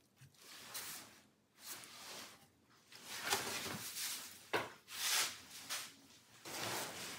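Faint handling noise: a series of soft rustles and light scrapes, strongest in the second half.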